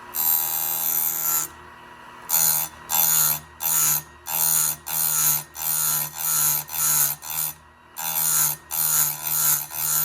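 Harbor Freight bench chainsaw chain grinder's wheel grinding a cutter tooth: one long pass, then about a dozen short dips of roughly half a second each, with the motor running steadily between them.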